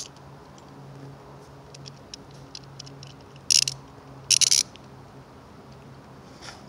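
Small plastic clicks and rattles from Beyblade top parts being handled and fitted together, with two louder, short rasping bursts about three and a half and four and a half seconds in.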